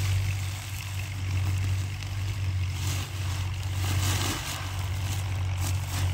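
An engine running steadily with a low, even hum. About halfway through, a faint rustle of wheat grain joins it as seed is poured from a sack into a bag.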